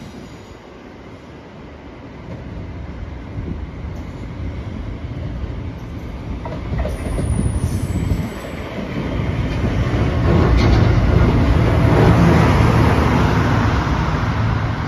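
Yellow railway track maintenance vehicle approaching and passing close by, its engine and rolling wheels growing steadily louder and loudest as it draws alongside near the end. A brief high thin squeal about halfway through.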